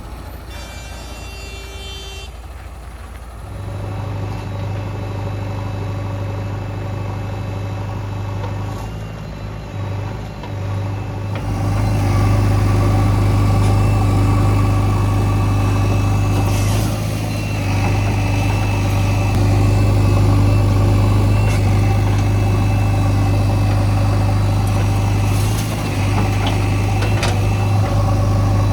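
Heavy diesel engine running steadily, stepping up in loudness about four seconds in and again about twelve seconds in.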